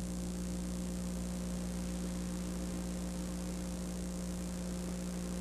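Steady electrical hum with a few higher overtones over a layer of hiss: mains hum and tape noise on an old videotape's audio track.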